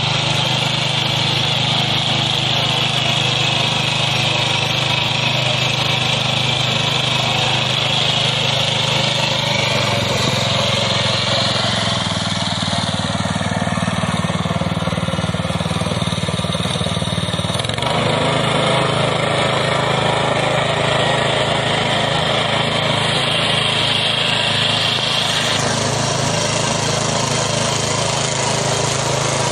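Small single-cylinder gasoline engine on a push-type rice seeder running steadily, its tone shifting abruptly a couple of times partway through.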